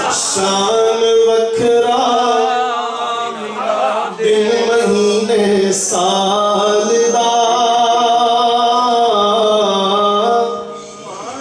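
A man's voice singing a naat (devotional Urdu praise poetry) into a microphone, in long drawn-out held notes that step between pitches; the voice fades away near the end.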